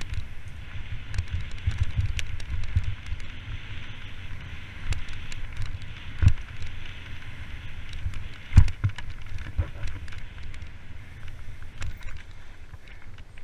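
Mountain bike descending a rough dirt trail, heard from a camera riding with it: a steady low rumble of wind and tyres, with frequent small clicks and rattles from the bike over the ground. Two heavier knocks stand out, about six seconds in and again a couple of seconds later.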